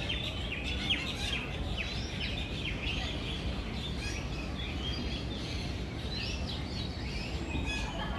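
A flock of birds chirping and calling in many quick, short notes, over a steady low background noise.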